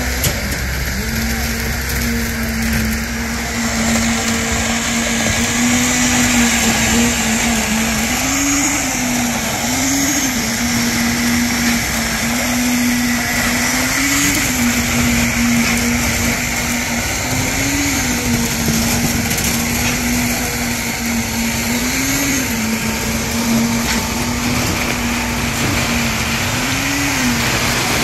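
Steady motor drone from concrete-pouring machinery during a slab pour, holding one pitch and rising briefly every few seconds as the load changes, over a wide mechanical noise.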